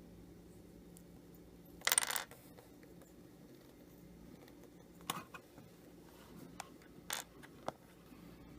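Small plastic and metal cup holder latch parts being handled, clicking and clattering: a short clatter about two seconds in, then a handful of sharp separate clicks.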